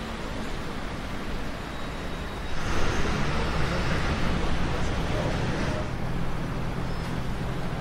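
Bugatti Chiron's quad-turbo W16 engine running steadily at idle. About two and a half seconds in, a louder rushing hiss joins the low engine note.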